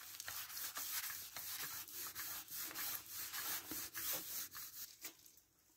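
Wooden rolling pin rolled back and forth over floured dough on a board, a repeated rubbing swish with each stroke, which fades out about five seconds in.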